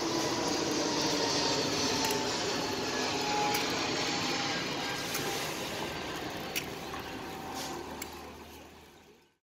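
Busy street-market ambience: a steady din of traffic and indistinct voices, with a few sharp clicks. It fades out about nine seconds in.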